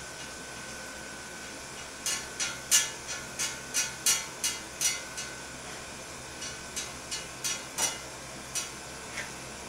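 A ratchet mechanism clicking slowly and evenly, about three clicks a second, in two runs with a short pause between; the second run slows near the end.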